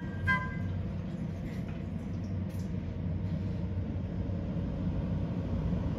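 A last bell-like note of background music just as it starts, then a steady low rumble of room noise that holds at an even level throughout.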